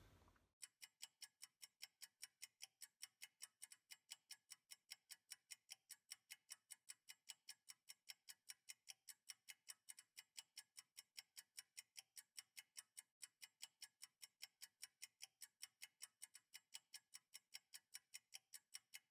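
A ticking clock, faint, fast and even at about four ticks a second, starting about half a second in.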